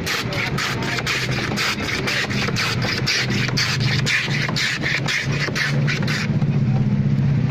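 A block of ice being shaved by hand across the blade of a wooden ice-shaving box, with quick, even scraping strokes at about four a second that stop about six seconds in. Under it runs a steady engine idle, which grows louder once the scraping stops.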